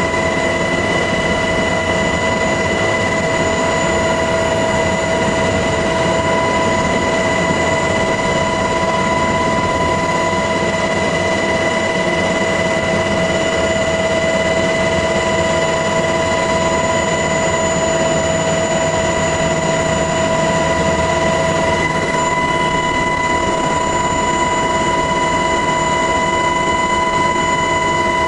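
MH-60S Knighthawk helicopter running steadily, heard from on board: a loud, even rumble of rotor and engine noise with a high, steady whine running through it.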